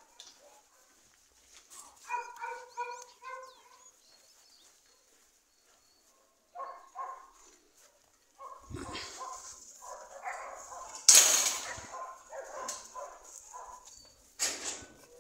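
Dogs barking in short bouts: four quick barks in a row about two seconds in, two more around seven seconds, then a busier run of barks with the loudest one about eleven seconds in.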